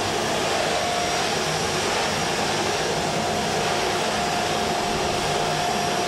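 Canister vacuum cleaner running steadily, its floor brush being pushed across a wooden floor: an even rushing noise with a steady whine over it.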